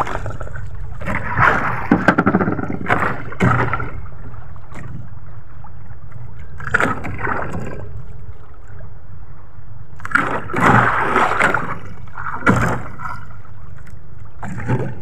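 Water sloshing and slapping against the hull of a small outrigger fishing boat at sea, in irregular surges every second or two over a steady low rumble.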